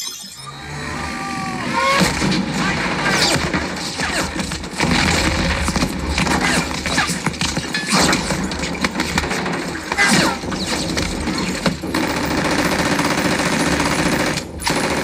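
War-film battle soundtrack with rapid machine-gun fire and gunshots, played through a Polk MagniFi MAX soundbar and its subwoofer. It starts quieter and builds to a dense, loud barrage of shots about two seconds in.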